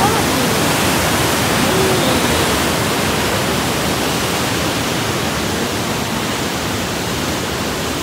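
Huka Falls on the Waikato River: a torrent of white water rushing through a narrow rock gorge close below, a loud, steady rushing noise.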